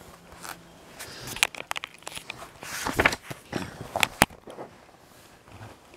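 Pages of a comic book being turned and handled: paper rustling and crinkling, with several sharp clicks, the loudest about three and four seconds in.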